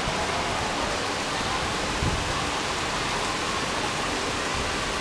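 Steady downpour of rain falling on wet pavement, an even hiss that holds at one level throughout.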